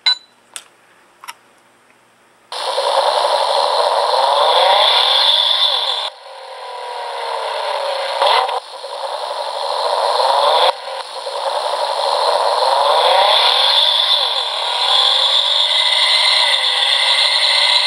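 A few short selection beeps from a sound-effect IC circuit, then the chip plays a buzzy vehicle sound effect through a small, tinny speaker. The effect has fast gliding pitch sweeps, and it cuts out and starts again three times as the trigger is let go and pressed again.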